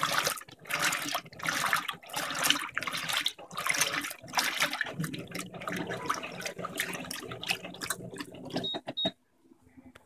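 Electrolux LTM15 top-load washing machine agitating a king-size duvet in sudsy water: rhythmic sloshing and splashing, about two strokes a second. The churning stops abruptly about nine seconds in.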